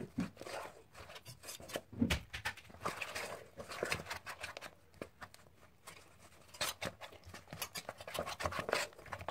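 A hand kneading crumbly rice-flour murukku dough in a stainless steel bowl: irregular rustling, squishing and scraping of fingers through the damp flour and against the steel.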